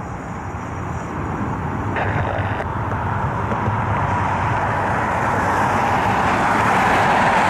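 Jet airliner engine roar building steadily louder as the aircraft draws nearer.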